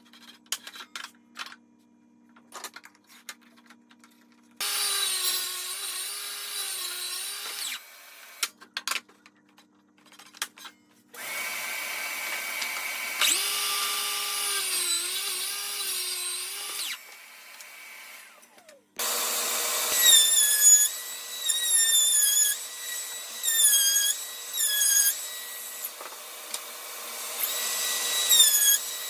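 An electric drill running in three bursts on wood, its motor whine dipping in pitch again and again as the bit bites under load. The last and longest burst has quick repeated dips.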